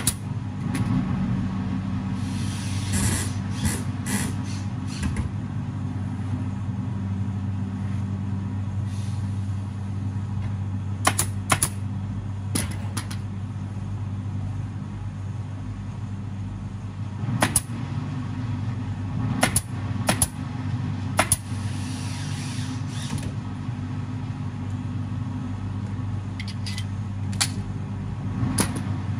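Pneumatic upholstery staple gun firing staples through fabric into a sofa frame: single sharp snaps in scattered small groups, over a steady low machine hum.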